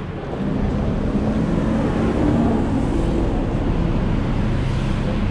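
City street traffic on wet asphalt: passing cars and a bus, a steady rush of tyres with a low engine hum underneath.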